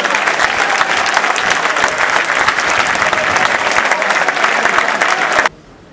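Crowd of football supporters applauding, a dense patter of many hands clapping, which cuts off suddenly about five and a half seconds in.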